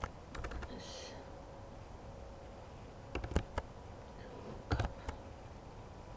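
Computer keyboard keystrokes in three small clusters: about half a second in, about three seconds in, and near five seconds. These are a few key presses each time as a command is corrected and typed.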